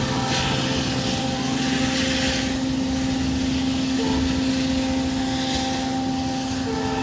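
Diesel locomotive engine running steadily: a constant droning hum with a noisy rumble underneath.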